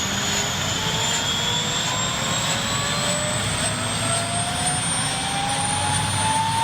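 F-35B Lightning II's F135 jet engine running loud and steady, with a whine that rises slowly and continuously in pitch.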